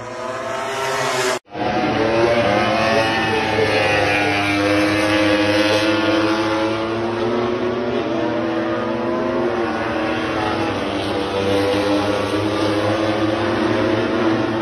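Several MotoGP racing motorcycles running at high revs as they pass through a corner, their engine notes overlapping and rising and falling in pitch. The sound cuts out for an instant about a second and a half in.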